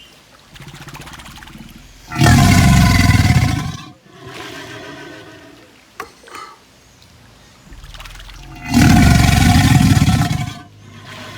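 Crocodile bellowing: two loud, deep bellows, each lasting about two seconds, about six seconds apart, with quieter low rumbling before and between them.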